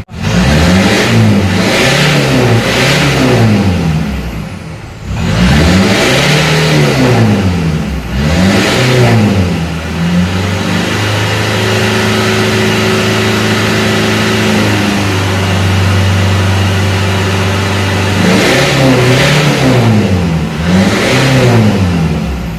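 Mitsubishi L200 Triton 3.2 diesel engine being revved repeatedly from cold, each rev rising and falling in pitch, held at a steady raised speed for several seconds in the middle, then revved again twice near the end. The revving is to bring the engine up to working temperature, as the timing chain only starts knocking once hot.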